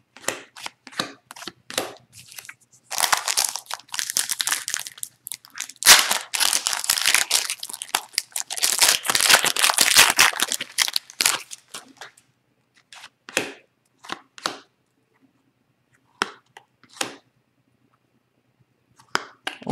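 Hands tearing open a foil Upper Deck hockey card pack, the wrapper rustling and tearing for about eight seconds in the middle. Before and after it come short, separate snaps of cards being flicked through by hand.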